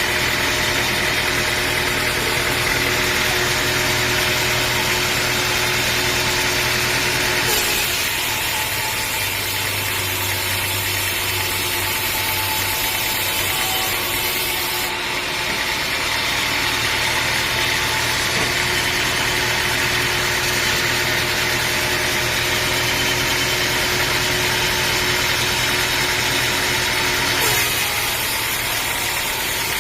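Sawmill engine running steadily at a constant speed. Its sound shifts abruptly a few times: about a quarter of the way in, halfway, and near the end.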